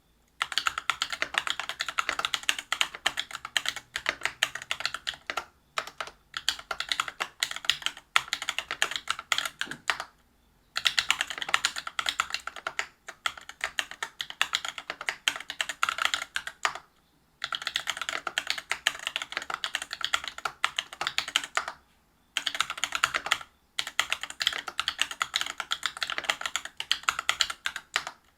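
Continuous typing on a Whale 75 mechanical keyboard with stock, unlubed Cobalt POM linear switches on a brass plate and PBT keycaps. Dense runs of keystrokes are broken by a few short pauses.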